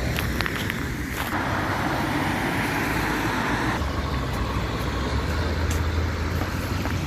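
A motor vehicle going by on a nearby road: a few seconds of tyre hiss, then a steady low engine hum from about four seconds in. A few footsteps in snow are heard in the first second.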